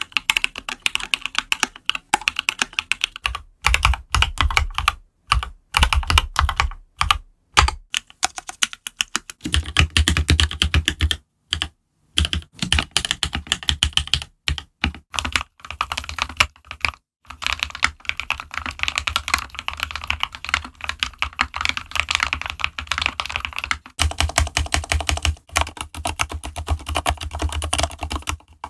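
Typing on a computer keyboard: fast runs of key clicks in bursts with short pauses between them, some stretches with a heavier low thud under the keystrokes.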